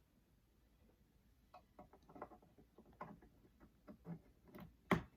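Light irregular clicks and taps of a laptop-style RAM module being handled and pushed at an iMac memory slot, with one sharper knock near the end. The module is turned the wrong way round, so it does not seat.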